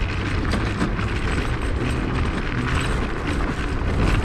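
Wind rushing over the microphone and tyres rattling on a gravel road as a Zero 10X electric scooter rolls downhill; a steady, heavy rumble.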